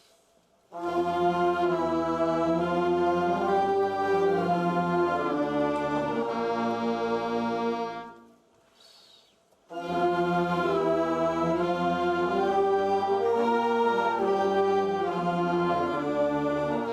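High school symphonic band playing slow, sustained chords in two phrases. The band comes in about a second in and holds to about eight seconds, stops briefly, then comes back in near ten seconds.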